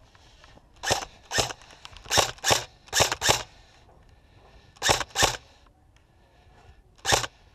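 Airsoft rifle fired on semi-auto: nine sharp shots, mostly in quick pairs, with short pauses between the pairs and a last single shot near the end.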